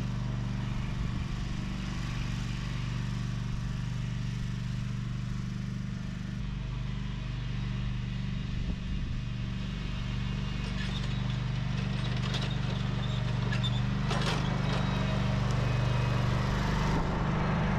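Exmark Laser Z zero-turn lawn mower engine running steadily at a constant speed. A few clicks and some hiss come over it in the last few seconds.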